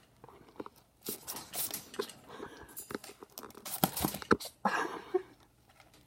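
Pet ferrets at close range: a series of short, sharp noisy bursts and clicks, with a cluster of louder ones about four seconds in.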